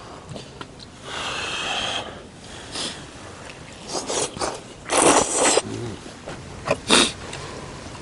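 A person slurping and eating hot curry udon noodles: several short, noisy slurps, the loudest about five seconds in.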